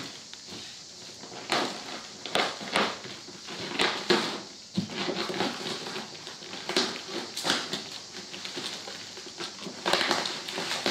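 Plastic shipping bag crinkling and rustling in irregular bursts as it is cut and torn open by hand.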